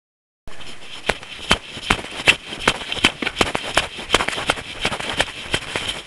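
A runner's footsteps at a steady running pace, nearly three footfalls a second, over a steady hiss, starting about half a second in.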